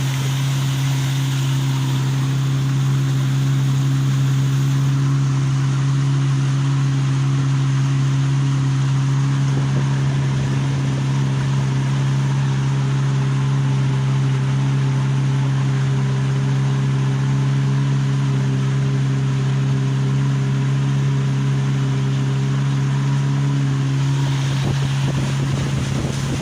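Boat motor running at a steady speed, with wind and water noise over it; its higher tones fade away about 24 seconds in.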